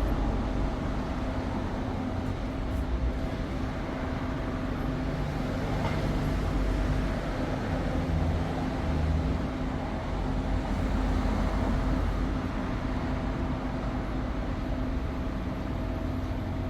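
A machine running steadily: an even hum with a low steady tone, holding the same speed throughout.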